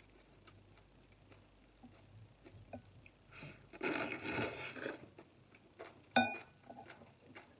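Slurping up a mouthful of glass noodles from a bowl of hotpot soup, loud for about a second and a half in the middle, amid small chewing and mouth clicks. A couple of seconds later, one sharp clink of a utensil against the ceramic bowl, ringing briefly.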